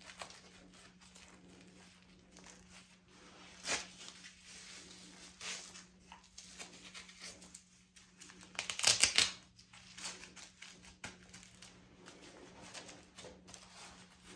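Clothing and a gun belt with its holster and tourniquet being handled: a shirt tucked in and the belt pulled into place, giving fabric rustling and short clicks, loudest in a dense cluster about nine seconds in. A faint steady hum runs underneath.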